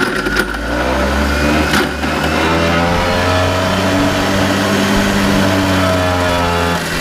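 Clark forklift's engine running steadily, its pitch drifting slightly up and down, with a single sharp click about two seconds in.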